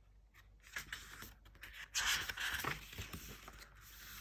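A picture-book page being turned by hand: paper rustling and scraping, loudest about two seconds in.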